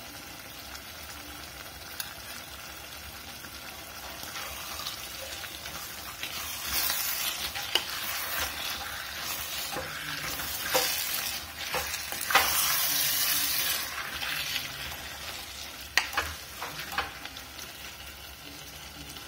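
A pot of sangri sizzles steadily. A few seconds in, a spatula starts stirring the salt through it, scraping and now and then knocking against the stainless steel pot.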